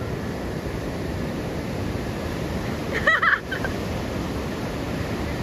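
Ocean surf breaking steadily on a sand beach. About three seconds in, a brief high-pitched call, under half a second long, stands out as the loudest sound.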